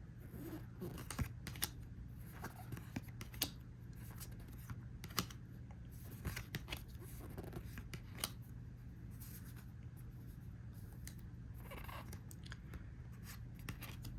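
Trading cards being handled and flipped through: irregular light clicks, snaps and short slides of card stock, over a faint steady hum.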